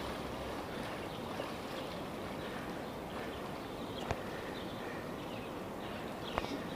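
Wading through floodwater: steady sloshing of water around the legs, with two sharp knocks about four seconds in and again near the end.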